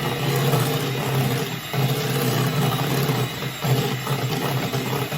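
Electric mixer running steadily as it blends milk into a pound cake glaze, with a few brief dips in the motor sound.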